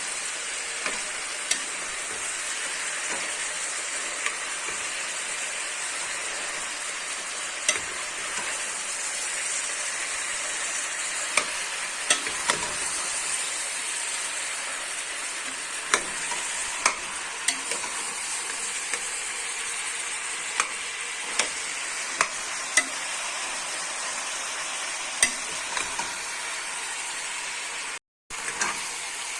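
Beef, onions and carrots frying in fat in a pot, with a steady sizzle. Irregular clicks and scrapes come from a utensil stirring against the pot. The sound cuts out for a moment near the end.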